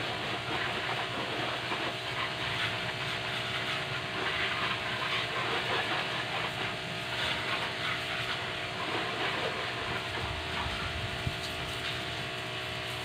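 Electric high-pressure washer running, a steady hiss of the water jet spraying over the even hum of its motor.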